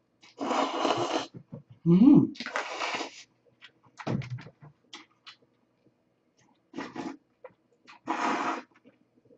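Slurping noodles out of cold soy-milk broth in a few noisy slurps, with small wet clicks of chewing between them, then sips of broth drunk straight from the bowl near the end. A short low voice-like sound about two seconds in is the loudest moment.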